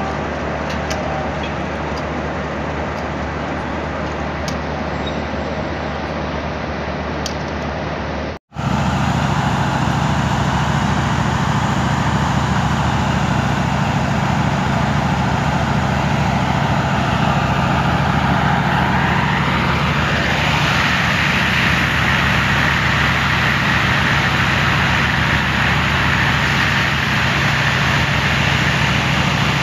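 Pakistan Railways diesel-electric locomotives running close by during shunting, a steady low engine note with mechanical noise over it. The sound breaks off for a moment about eight seconds in and comes back louder.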